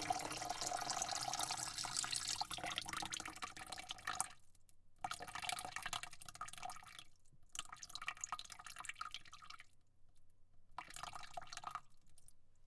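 Water spraying into a bucket: a steady hissing spray for about four seconds, then three shorter spurts with brief pauses between them.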